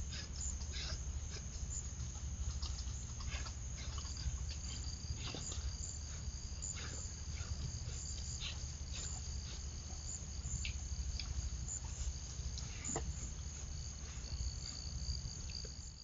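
Woodland insects trilling steadily at a high pitch, a second insect drone joining a few seconds in, over a low steady hum, with scattered short ticks and rustles.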